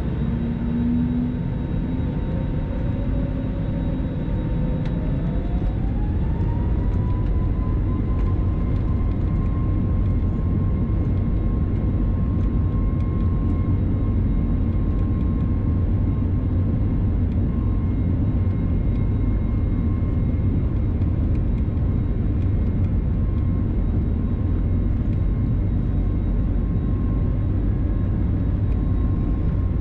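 Airliner jet engine heard from inside the cabin over the wing: its whine rises in pitch about five seconds in as it spools up, then holds steady over a constant low rumble as the plane rolls along the ground.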